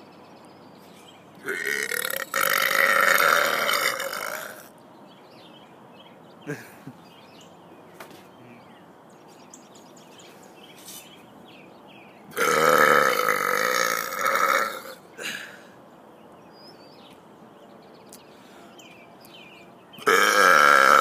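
A man belching loudly three times: two long burps of about three seconds each, and a third that starts near the end.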